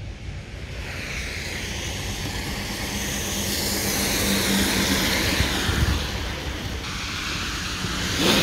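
A vehicle passing on a wet, slushy road: the tyre hiss swells over a few seconds, then fades.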